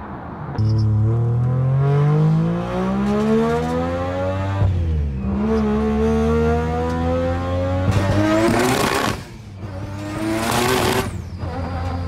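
Turbocharged three-rotor Mazda RX-7 rotary engine accelerating hard under boost, its pitch climbing through one gear, dropping at a shift a little under halfway, then climbing again. Near the end come two loud hissing rushes at high revs before the engine note cuts off.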